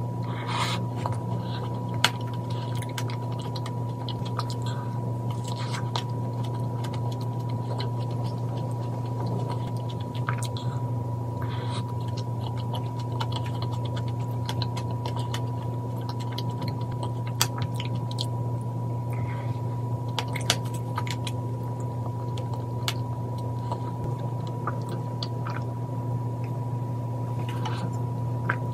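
Close-up chewing and biting of a cream-filled macaron, with scattered soft crunches and a few sharp clicks, over a steady electrical-sounding hum.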